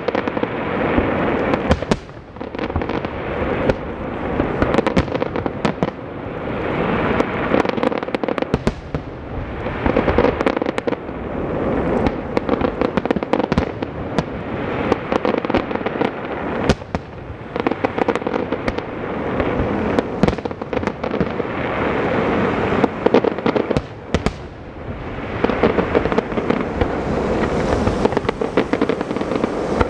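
Aerial fireworks shells bursting in quick succession: many sharp bangs over dense, continuous crackling, an almost unbroken barrage that eases only briefly twice.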